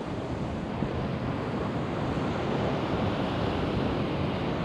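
Sea surf washing against a rocky shore, with wind rumbling on the microphone.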